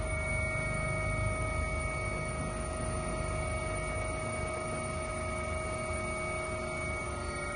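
Helicopter in flight heard from inside the cockpit: a steady drone with a deep rumble and several steady whining tones above it.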